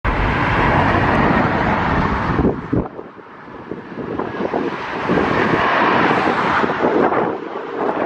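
Gusty wind buffeting the microphone over a steady roar. The heavy rumble cuts out suddenly about three seconds in, then the roar builds back up.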